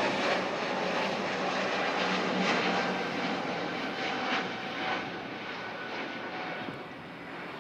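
Jet noise of an Airbus A321neo with Pratt & Whitney PW1100G geared turbofans passing the airfield: a steady rushing roar with a faint whine, fading away from about five seconds in.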